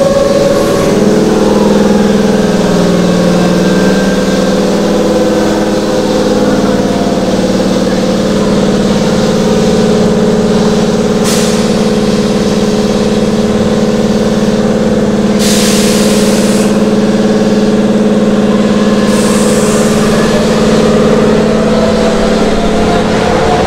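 Keihan electric train's on-board equipment humming steadily in several tones, echoing in the underground station, with three short hisses of air about 11, 15 and 19 seconds in and a faint rising tone near the end.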